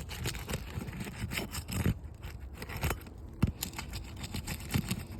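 Asphalt roof shingle tabs being pried up to break their adhesive seals: irregular scraping and crackling with a few sharp cracks, about two, three and three and a half seconds in. The shingles are brittle, shedding granules as the seals break.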